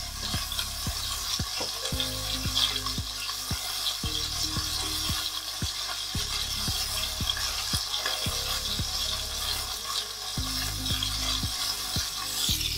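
Chicken thighs frying meat side down in a cast iron skillet over low heat: a steady sizzle with frequent small pops and crackles of fat.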